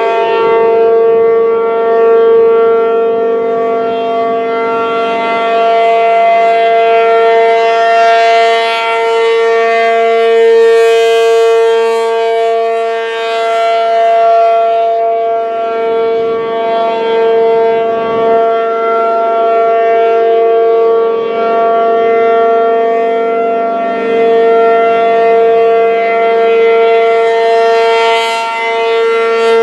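P-50 outdoor warning siren stuck on, sounding one steady, unwavering tone with many overtones, its loudness swelling slightly now and then. It will not shut off, a fault the uploader puts down to a welded relay in its controls.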